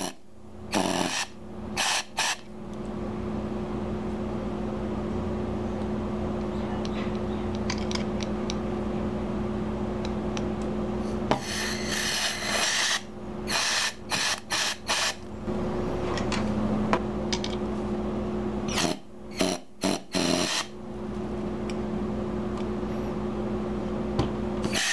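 Gas from a KWA gas can being forced into an airsoft M203 grenade shell's fill valve and leaking back out with a steady buzzing hiss, the 'farting' sound, broken twice by louder sputtering bursts. It is the sign that gas is not filling the grenade, which can come from the striker valve not seating.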